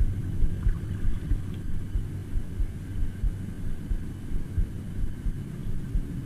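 A low, steady rumble with uneven low thumping underneath.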